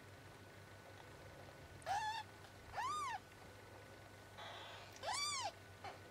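Newborn Bengal kittens, four days old, mewing: three short high-pitched mews, each rising and falling in pitch, at about two, three and five seconds in.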